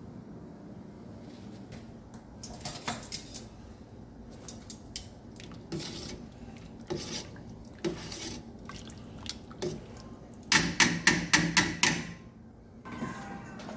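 Kitchen work sounds: scattered clinks and knocks of utensils and dishes, then a quick run of about eight sharp knocks, the loudest of them, about ten and a half seconds in.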